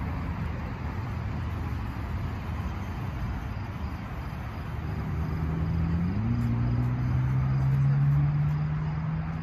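Steady low outdoor rumble. About halfway a vehicle engine's low hum comes in, steps up in pitch about a second later and holds steady, becoming the loudest sound. Faint crickets chirp steadily.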